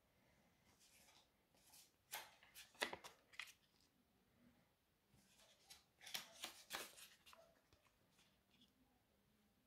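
Paper euro banknotes rustling and crinkling as they are handled and laid down on a table, in two short clusters of crinkles, around two to three seconds in and again around six to seven seconds in.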